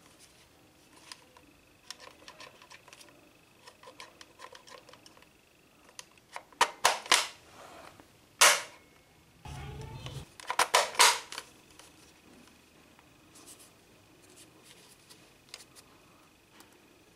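Plastic toy guns being handled, loaded and fired: scattered small plastic clicks, with clusters of loud sharp clicks and a single loud snap through the middle. A brief low buzz comes about nine and a half seconds in.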